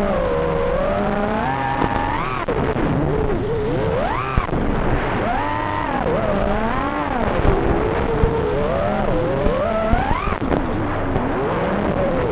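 FPV quadcopter's brushless motors whining, the pitch swooping up and down again and again as the throttle is punched and eased, over a steady rushing noise.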